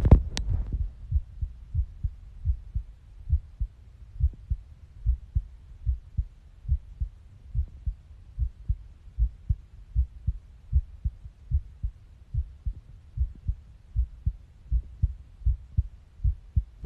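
A woman's heartbeat picked up by a smartphone microphone pressed against her chest: a steady, regular run of low, muffled thumps, a healthy-sounding rhythm. A brief rub of the phone against her clothing at the very start as it is pressed in place.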